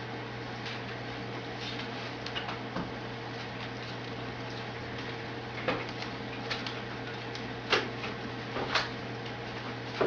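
Steady low hum and hiss with a few scattered clicks or taps, the sharpest about three-quarters of the way through.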